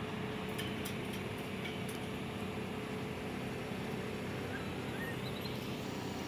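Steady outdoor background noise, an even low hum with a faint steady tone in it, and a few faint high chirps about four to five seconds in.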